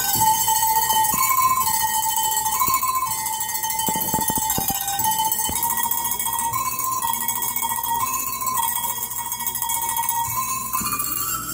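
Tuned Alpine cowbells played as a melody, one ringing tone stepping from note to note, with a few sharp knocks about four seconds in.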